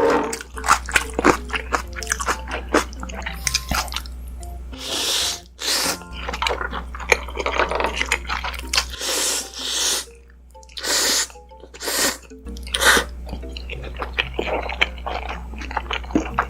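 Ramen noodles being slurped and chewed close to the microphone: wet chewing clicks throughout, and several short slurps between about five and thirteen seconds in.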